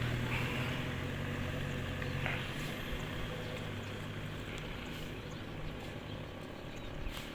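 A motor vehicle's engine running with a low hum that slowly fades as it moves away, over a steady outdoor hiss.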